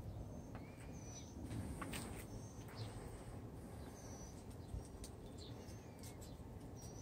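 Faint chirping of small birds: short high notes repeating about once a second, over a low steady rumble, with a few light clicks around two seconds in.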